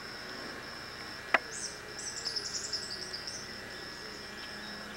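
A quick burst of high bird chirps lasting about a second and a half, over a steady, evenly pulsing high buzz. A single sharp click comes just before the chirps.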